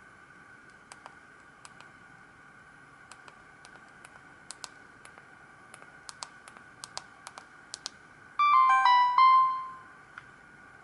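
Samsung GT-E1175T mobile phone: a string of soft, separate clicks over the first eight seconds, then, about eight seconds in, a short ringtone melody, a quick run of electronic notes ending on a held note that fades away.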